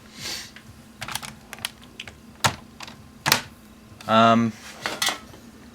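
Scattered, irregular clicks and taps of keys being pressed on a Dell Latitude D520 laptop keyboard, about ten in all, with one louder tap midway.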